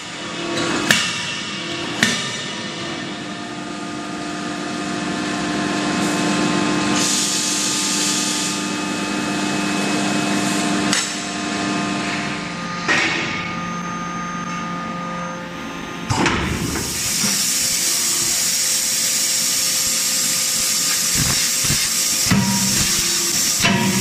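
CNC fully-hydraulic closed-die forging hammer striking hot steel a handful of times, each blow a sharp bang several seconds apart. Between the blows there is a steady machinery hum with a few constant tones, and a louder hiss in the second half.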